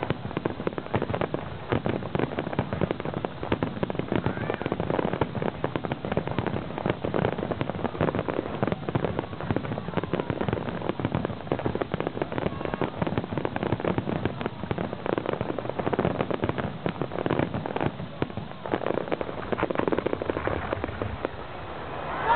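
Aerial fireworks display: shells bursting in quick succession with dense, rapid popping and crackling that never lets up.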